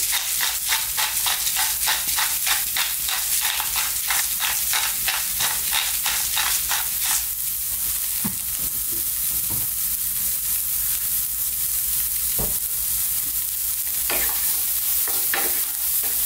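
Pepper mill grinding over onions and garlic sizzling in a frying pan, about four clicks a second for the first seven seconds. After that there is only the steady sizzle, with a few knocks, and near the end a wooden spatula scrapes and stirs the onions in the pan.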